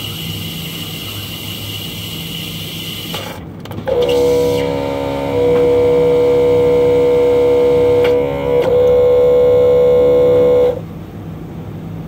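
Costa self-service coffee machine dispensing a latte: a steady hum with a high whine, then about four seconds in a much louder pitched drone from the machine that dips briefly past eight seconds and cuts off suddenly near eleven seconds.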